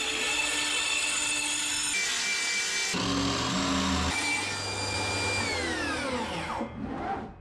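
Power saws running in quick succession: a cordless circular saw cutting plywood along a guide track, a jigsaw cutting a board, then a table saw. Near the end the table saw's motor winds down with a steadily falling whine.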